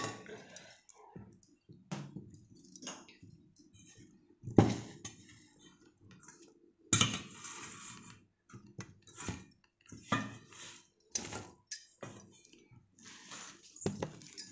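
Irregular knocks and clinks of stainless steel bowls and utensils being handled on a kitchen counter, with a faint steady hum underneath.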